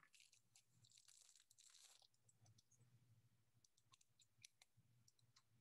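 Near silence: room tone with a few faint ticks and light rustling, the clearest tick about four and a half seconds in.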